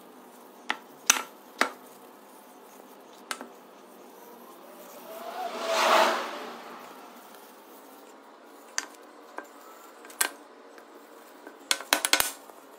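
Wooden box pieces handled and set down: scattered sharp wooden clicks and knocks, a rustle that swells and fades in the middle, and a quick cluster of knocks near the end.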